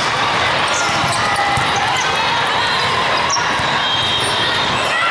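Din of a large hall full of volleyball courts: sneakers squeaking on the court floor, balls being struck and bouncing, and many voices mixing.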